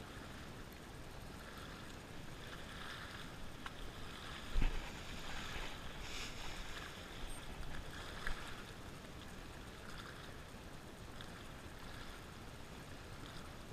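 Small waves washing and splashing against the rocks of a breakwall, swelling in a few surges, with a short low thump about four and a half seconds in.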